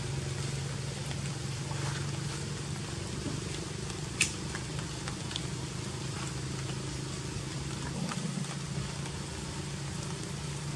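A motor running steadily with a low, even hum, with one short sharp click about four seconds in.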